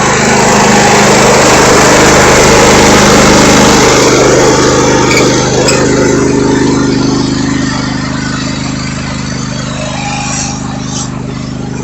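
Riding lawn mower engine running steadily, loudest for the first few seconds, then easing off.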